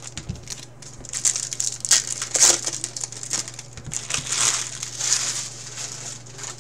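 Trading-card pack wrappers crinkling and crumpling in the hands in a run of irregular bursts, over a steady low hum.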